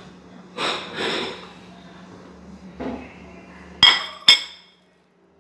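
Kitchen handling noises: a brief rustle and scrape, then two sharp clinks with a short ring about half a second apart, as of a utensil or dish knocked against something hard. A faint steady hum runs underneath.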